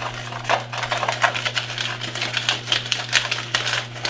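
A whisk stirring a dry flour mix in a bowl, its wires clicking rapidly and unevenly against the bowl's side.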